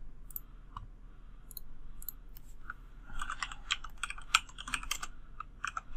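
Typing on a computer keyboard: a few scattered key presses, then a quick run of keystrokes from about three seconds in.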